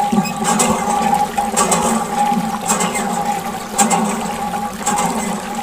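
Water pouring steadily from a thin plastic tube onto a muddy toy tractor, splashing and running off, with a steady hum underneath.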